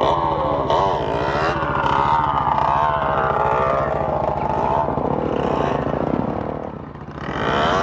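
Off-road vehicle engines: one idling close by with a steady, even pulse, while another revs with its pitch rising and falling. The sound dips briefly near the end, then swells again.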